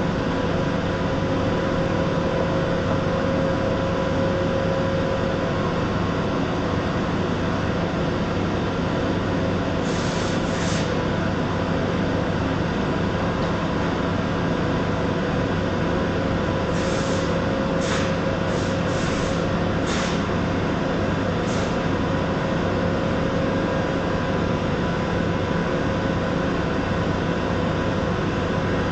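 Steady hum and hiss from a TIG welding setup, an inverter welder running on argon, with a few short sharper hisses near the middle.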